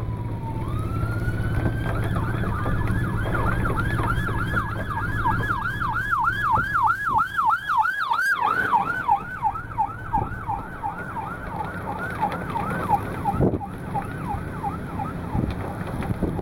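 Emergency vehicle siren: a wail that rises about half a second in, then switches to a fast yelp of about three sweeps a second. The yelp is loudest around the middle, fades and stops near the end. A low steady hum runs underneath for most of it.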